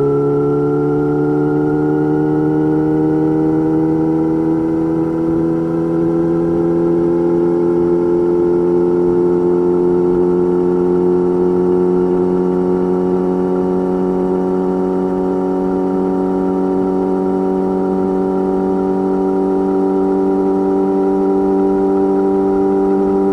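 Yamaha YZF-R6 inline-four engine running through an M4 GP slip-on exhaust while riding, a steady held-throttle note whose pitch creeps slowly upward as engine speed gradually rises.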